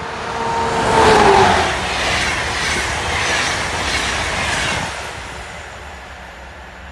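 EP09 electric locomotive and its passenger carriages passing at speed. A tone from the locomotive drops in pitch as it goes by about a second in. Then the carriages rush past with clattering wheels, fading away after about five seconds.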